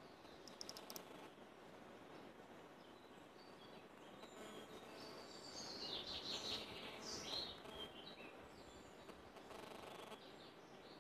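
Faint bird chirps and calls, most of them in a cluster around the middle, over a low steady background hiss.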